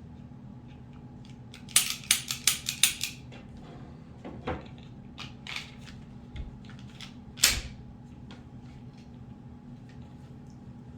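Metal clicks and clacks of a Taurus G3 9mm pistol being handled during reassembly: a quick run of about eight sharp clicks about two seconds in, then scattered lighter clicks and one louder clack near the middle.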